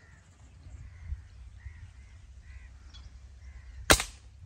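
Birds calling in short, repeated arched notes. Near the end comes a single loud, sharp crack: a shot from a Diana 350 break-barrel spring-piston air rifle.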